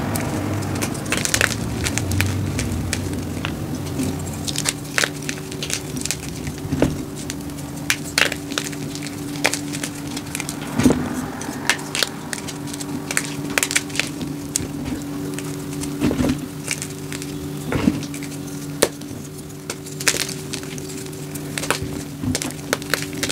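Dyed SPRI gym chalk blocks being squeezed, snapped and crumbled by hand among loose chalk pieces: a run of irregular crunches and sharp cracks. A steady low hum runs underneath.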